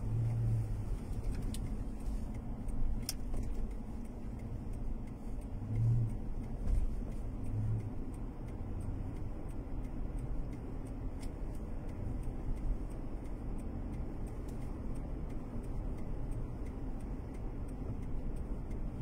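Car cabin noise while driving: a steady low rumble of engine and tyres on the road, with a few brief low swells.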